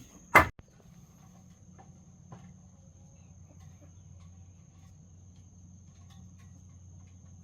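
One sharp knock about half a second in, followed by crickets trilling steadily and faintly over a low steady hum.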